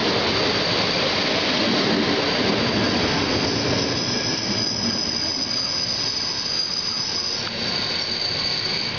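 Passenger coaches of a train rolling past close by, their wheels running on the rails in a steady loud rumble. From about four seconds in, a high, steady wheel squeal rides over it; it changes pitch near the end.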